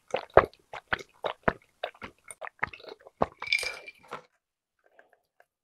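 Close-miked chewing of a person eating: wet, squishy mouth sounds, about three or four chews a second, stopping about four seconds in.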